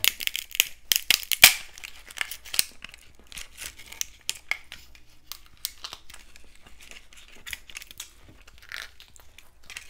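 Crackling and tearing of a fried, hot-Cheeto-crusted lobster tail pulled apart by hand to get the meat out of the shell: a quick flurry of sharp crackles in the first second and a half, then sparser crackles.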